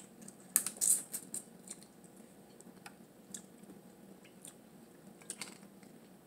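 Blue crab being picked apart by hand and eaten at close range: small sharp cracks and clicks of shell, with a dense cluster about half a second to a second in and scattered ticks after.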